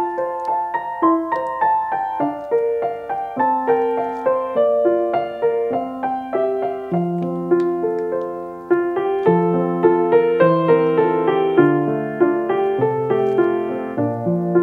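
Background piano music: a flowing run of single notes and chords.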